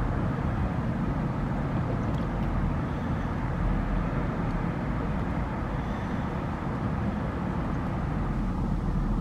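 Steady low rumble of background noise with a fainter hiss above it, unchanging throughout; no distinct gnawing strokes stand out.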